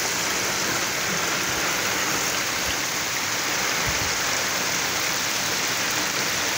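Heavy monsoon rain falling, a dense, steady hiss.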